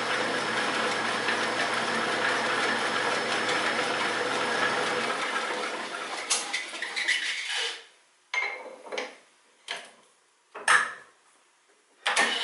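1940 Sheldon 11-inch lathe's U-type underdrive running in low speed: motor, belts and pulleys in the pedestal turning steadily. About five seconds in, the motor hum stops and the drive winds down over a couple of seconds. A few sharp metal clanks follow, from the underdrive's speed-change levers in the pedestal being shifted.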